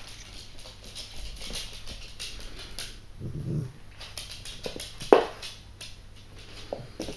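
Yorkshire terrier puppy and adult Yorkshire terrier playing: scuffling and scattered clicks of claws on a wooden floor, a short low growl about three seconds in, and a sharp yap about five seconds in.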